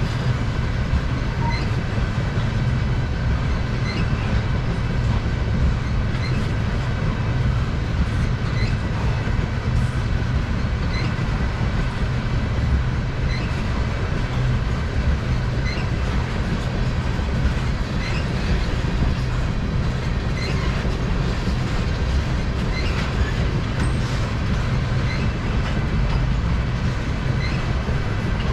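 Freight train tank cars rolling past: a steady low rumble of steel wheels on rail, with light clicks at a regular beat of about one a second and a faint steady high whine.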